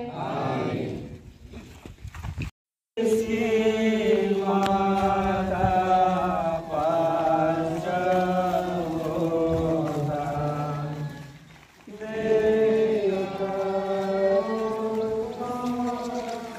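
A group of voices singing a devotional hymn together, with long held notes. The sound cuts out completely for about half a second around two and a half seconds in, and the singing pauses briefly near the end before going on.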